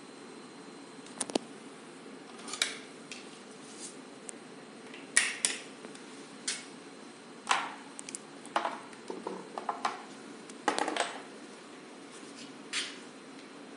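Irregular light clicks and taps of small hard objects being handled, about a dozen of them at uneven intervals, a few with a brief ring.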